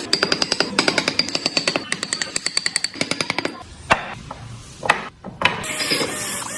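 A power tool working wood: fast, even rapid-fire striking that stops about three and a half seconds in. A few separate knocks follow, then a steady hissing, grinding sound starts near the end.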